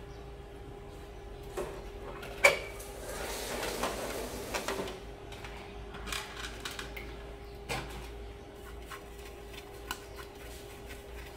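Handling noises from reassembling a solar lamp: clicks and knocks of its plastic LED panel, aluminium reflector bowl and clear plastic cover being moved and fitted by hand, with a sharp click about two and a half seconds in and a scraping rustle just after. A faint steady hum sits underneath.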